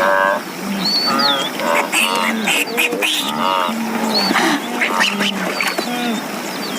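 Wildebeest herd calling: many short lowing calls from several animals overlapping, with birds chirping above them.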